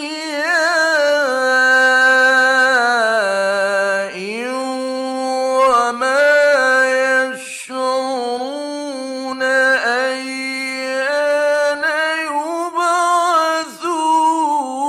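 A man's voice reciting the Quran in the melodic mujawwad style, holding long notes and ornamenting them with wavering turns of pitch, with brief breaks about four and seven and a half seconds in. It is an old 1960s radio recording.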